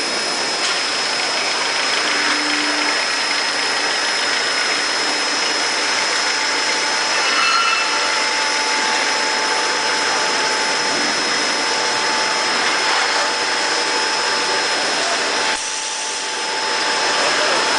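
AS78 unit-built machine tool running while machining a bracket: a steady, loud hiss with a thin high whine. The noise drops briefly about fifteen seconds in, then comes back up.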